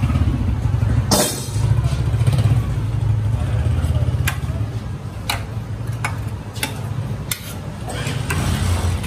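Steel ladle clinking against a large steel pot and a small steel bowl as chickpea curry is served out: several short sharp clinks spread through, over a loud low steady rumble.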